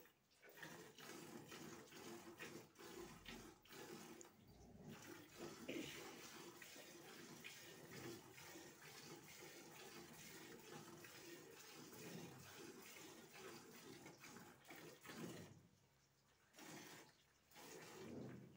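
Milk squirting in quick rhythmic jets into a steel bucket as a Murrah buffalo is milked by hand, with a short break near the end.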